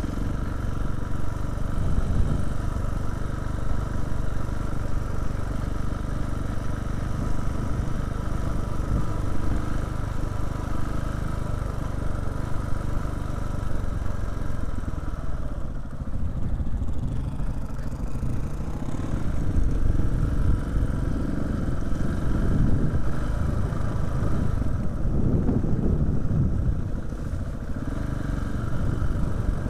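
KTM 690's single-cylinder four-stroke engine running at low speed on a muddy track, its note rising and falling as the throttle is opened and eased.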